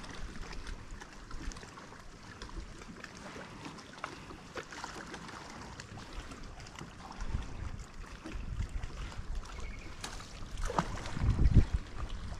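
Wind buffeting the microphone over choppy water lapping at the boat, with the gusts growing stronger near the end.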